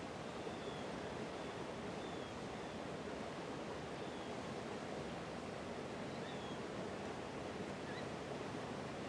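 Steady outdoor rushing noise, with a few faint, short high chirps scattered through it.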